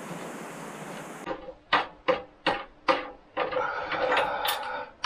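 Metal tool work on an industrial sewing machine's foot pedal linkage. A steady hiss cuts off just over a second in. Then come four sharp metallic clicks about two and a half a second apart, and a longer metallic scrape with a ringing tone.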